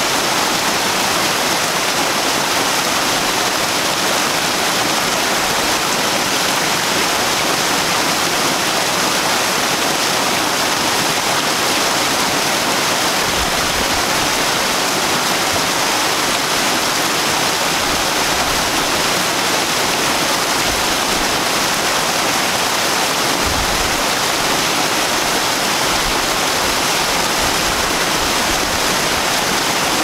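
Water tumbling steadily down a stacked-boulder garden waterfall and splashing into the pool at its foot: a constant, unchanging rush.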